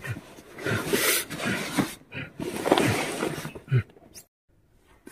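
Sounds of an unseen wild animal close outside a tent, heard from inside it: rough, noisy sounds recurring about once a second, cutting off abruptly about four seconds in.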